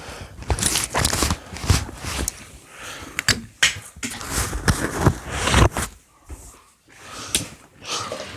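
Handling noise of small pocket gear: irregular clicks, knocks and rustles as items are picked up and set down close to the microphone.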